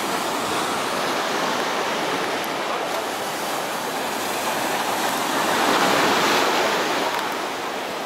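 Small sea waves washing on the shore in a steady hiss, with one wave surging louder about six seconds in.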